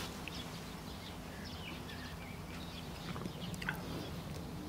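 Quiet rural background: a few faint, short bird chirps over a low steady hum.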